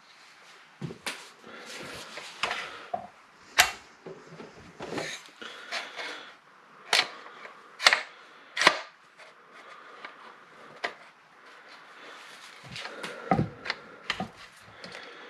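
Handling noise from a 20-gauge pump-action shotgun's barrel and receiver as they are fitted back together: metal scraping and rattling, with four sharp clicks in the middle and a dull knock near the end.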